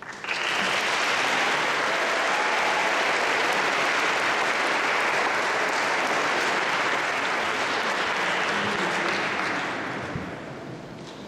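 Audience applauding: it breaks out all at once, holds steady, and dies away near the end.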